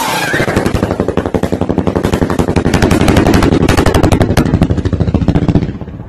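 A firework shooting up into the sky while firing a rapid string of sharp cracks, about ten a second, like automatic gunfire. It stops abruptly near the end.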